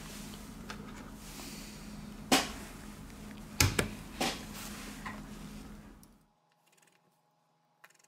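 A few sharp clicks and taps of a smartphone's metal-plated middle frame being laid over the circuit board and pressed into place, over a steady low hum. The background drops to near silence about six seconds in, leaving only faint ticks.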